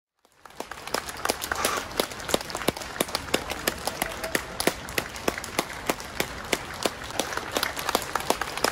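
Crowd applauding, with sharp, loud individual claps from people clapping close by standing out over the steady clatter of the wider applause.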